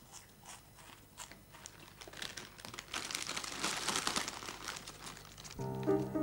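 Quiet crinkling and rustling made of many small crackles, busiest about three to five seconds in. Piano music comes in shortly before the end.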